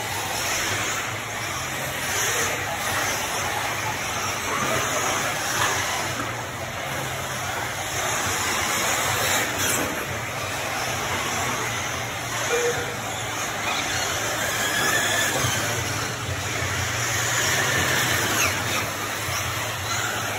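Several 1/8-scale electric RC truggies racing on a dirt track, their motors whining and rising and falling in pitch with the throttle over a steady rushing noise.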